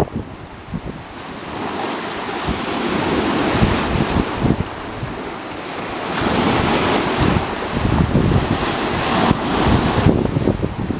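Wind-driven waves on a lake washing in, a broad rushing hiss that swells and falls in slow surges, with two big washes in the middle. Wind buffets the microphone, adding a gusty low rumble throughout.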